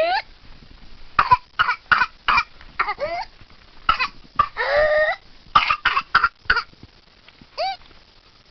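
Whooping cough (pertussis): fits of quick, short coughs, each fit followed by a high rising whoop as breath is drawn back in. The longest whoop comes about halfway through.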